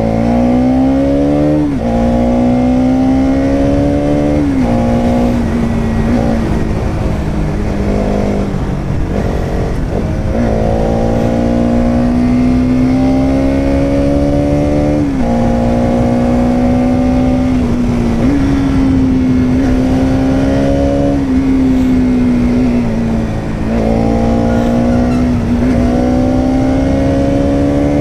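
Bajaj Pulsar NS200's single-cylinder engine riding under way, its pitch climbing under throttle and dropping back several times with gear changes and easing off.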